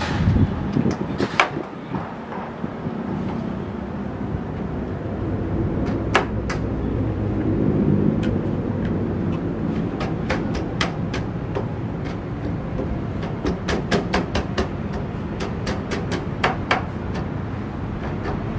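Sharp clicks and knocks of a column speaker being handled and fitted together on its subwoofer: a few at first, then a quick irregular run of clicks through the middle and latter part, over a steady street background noise.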